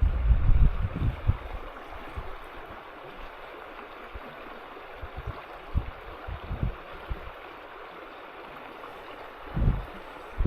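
Small headwater creek running steadily, a constant rush of moving water. A few low rumbles, strongest in the first second or so and again near the end, sound like wind or handling on the microphone.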